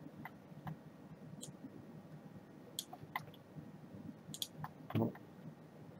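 Computer mouse clicking: a handful of short, scattered clicks over a faint low hum, with one louder thump about five seconds in.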